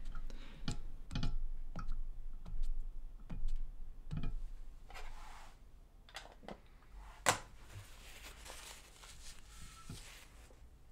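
Stamp ink pad in its plastic case dabbed repeatedly onto a 3D-printed plastic printing plate on a metal press bed to ink it: a run of light clicks and knocks. A sharper click comes about seven seconds in, with soft rustling around it.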